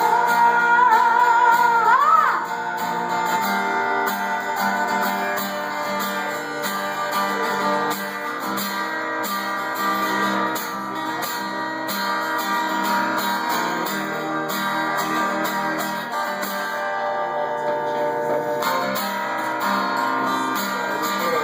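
Acoustic guitar playing an instrumental break, strummed and picked chords. A held sung note slides off and ends about two seconds in.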